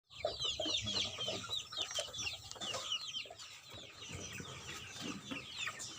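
A flock of KUB chickens calling, with many high, short, falling peeps overlapping each other and a few lower clucks mixed in.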